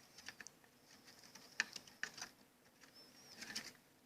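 Faint, irregular clicks and light taps from handling a small computer power-supply cooling fan while it is being prepared for oiling, with a brief faint high chirp about three seconds in.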